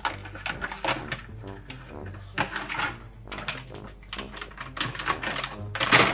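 A foil-lined plastic snack bag crinkling and crackling as a young monkey pulls at it and bites it, in irregular rustles with the loudest burst of crinkling near the end.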